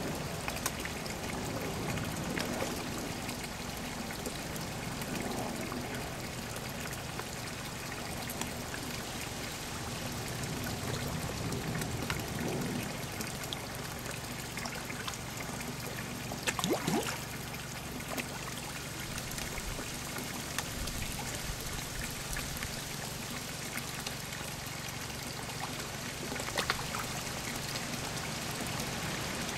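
Steady trickling and splashing of garden pond water, with two sharper splashes partway through.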